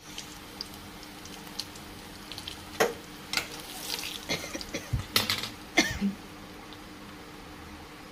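Oil sizzling steadily in a stainless-steel kadai with garlic, curry leaves and dried red chillies frying for a tempering. Between about three and six seconds in, a metal spoon stirs and knocks against the pan several times.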